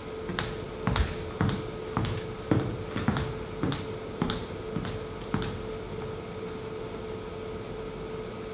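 Footsteps of a person walking across a stage floor: about ten sharp steps roughly half a second apart, stopping a little past halfway. A steady hum continues underneath.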